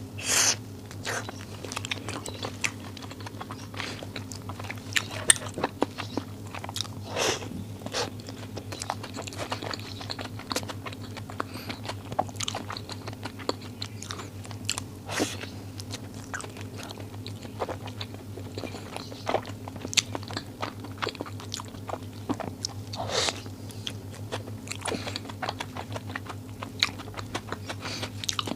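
Close-up biting and chewing of extra-large nuomici (glutinous-rice balls): irregular wet mouth clicks and smacks throughout, over a steady low hum.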